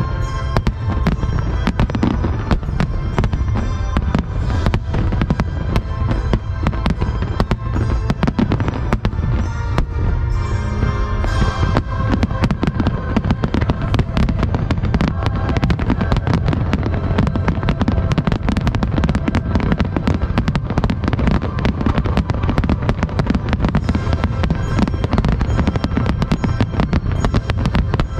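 A dense barrage of aerial firework shells bursting in rapid succession, many sharp bangs a second without a break, with music playing underneath.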